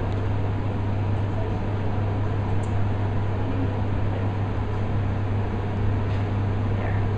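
Steady low hum with an even hiss inside a London Eye capsule, typical of the capsule's air-conditioning unit running.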